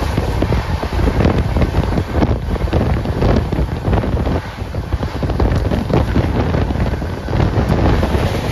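Wind buffeting the microphone at the open door of a moving express train, over the steady rumble and clatter of the LHB coach running on the track.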